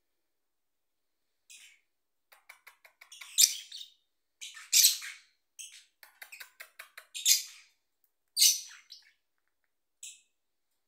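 Small pet parrots chirping: runs of quick, short chirps mixed with several loud, sharp calls, starting about a second and a half in and with short pauses between.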